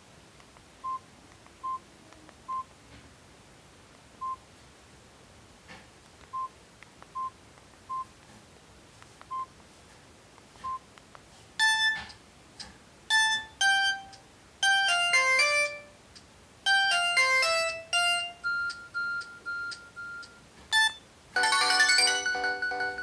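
Samsung GT-E1150 mobile phone: short single keypad beeps at irregular intervals as its buttons are pressed, then its ringtone melodies play through the phone's small speaker, a run of quick pitched notes from about twelve seconds in and a fuller, denser tone near the end.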